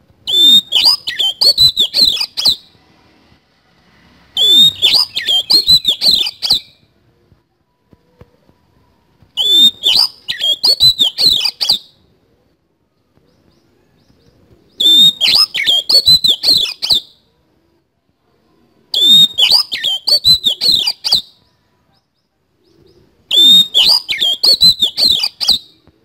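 Oriental magpie-robin (kacer) singing in harsh, scratchy bursts. Six bouts of about two seconds come every four seconds or so, each a fast run of high, chattering notes.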